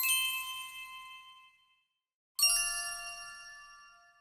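A small metal chime struck twice, about two and a half seconds apart. Each strike rings with several high, clear tones that fade away over a second or two.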